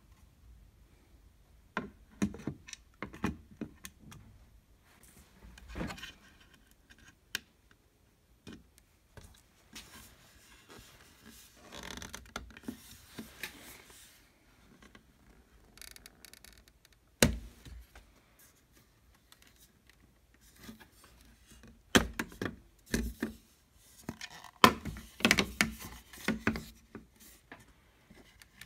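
A black plastic TV speaker box being handled and worked loose from the TV's sheet-metal back chassis: scattered knocks, clicks and scrapes of plastic on metal, with a sharp knock about two-thirds of the way through and a busy run of knocks and scrapes near the end.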